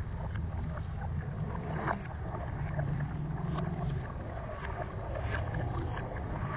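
Water falling and splashing: a steady low rumble with scattered small splashes and drips.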